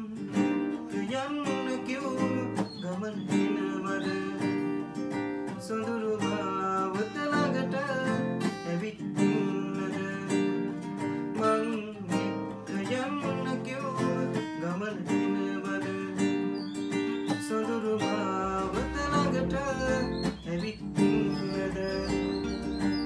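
Two acoustic guitars strummed and picked together, accompanying a man singing a Sinhala song.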